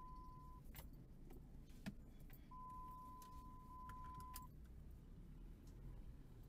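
Faint low rumble of a Jeep Grand Cherokee ZJ driving slowly over a rough off-road track, heard from inside the cab, with scattered light rattles and clicks. A steady high electronic tone cuts off about half a second in and comes back for about two seconds in the middle.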